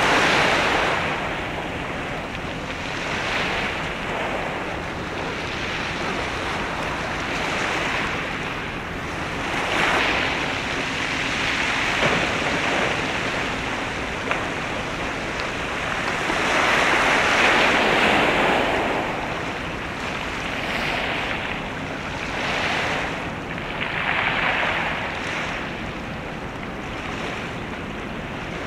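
Waves washing against the shore, surging and fading every few seconds, with some wind.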